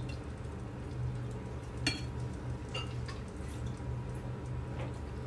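Metal ladle scooping hot broth in a large stainless steel pot, with liquid sloshing and dripping and one sharp clink of the ladle against the pot about two seconds in. A steady low hum runs underneath.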